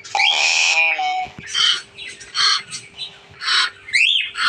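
Hill myna calling: a loud harsh squawk, then a string of short calls and whistles about once a second, one of them a rising-then-falling whistle near the end.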